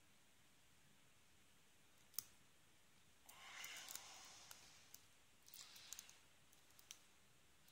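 Faint, scattered small clicks and scratches of a lock pick and tension wrench working the pins inside a Chubb 5-pin brass padlock during single-pin picking, with a soft hiss about three and a half seconds in and a quick run of clicks near the end.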